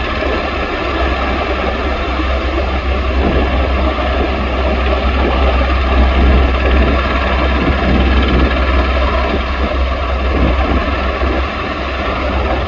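AgustaWestland Merlin (EH101) three-turbine helicopter running steadily, a continuous turbine whine over a heavy low rotor rumble.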